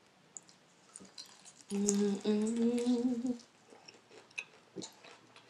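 A person chewing crispy fried chicken with small crunches and mouth clicks, and a long closed-mouth 'mmm' of enjoyment starting about two seconds in, rising slightly in pitch.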